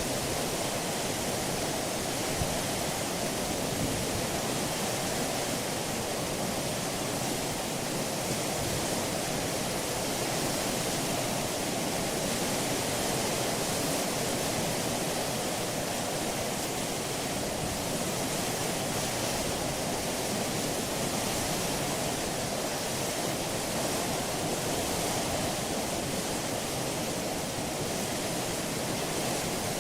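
Steady rush of water past a ship's hull while it is under way, an even hiss with no engine note or horn.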